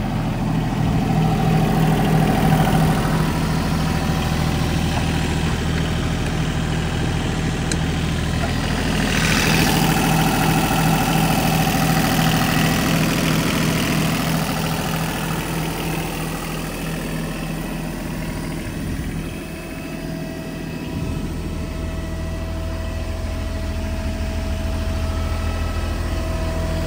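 Komatsu PC28UU-2 mini excavator's diesel engine idling steadily, with a brief swell of rushing noise about nine seconds in.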